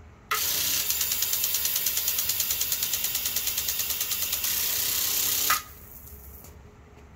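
Orbit Yard Enforcer motion-activated sprinkler firing: a sudden loud hiss of spray with a rapid, even ratcheting tick as the head steps across, cutting off abruptly after about five seconds.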